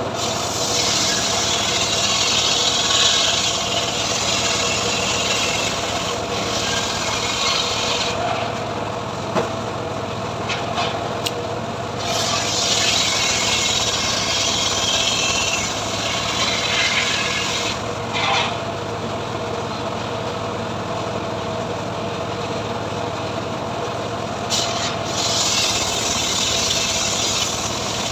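Homemade engine-driven sawmill cutting mahogany: the engine runs steadily throughout while the saw blade rasps through the wood. The cutting noise comes in long stretches near the start, in the middle and again near the end, with gaps where only the engine is heard.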